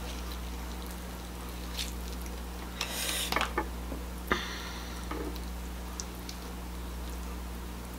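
King crab leg shell being broken apart by hand: a crackling crunch about three seconds in, then a sharp snap just after four seconds, with a few small clicks around them. A steady low hum runs underneath.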